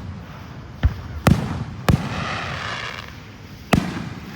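Fireworks going off: three sharp booms in quick succession in the first two seconds, then one more near the end, each trailing a short rumble.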